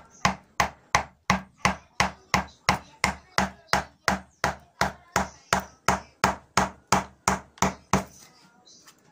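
Wood mallet tapping a carving gouge, driving it through the wood in short cuts along a curved groove. The strikes come evenly, about three a second, and stop about eight seconds in.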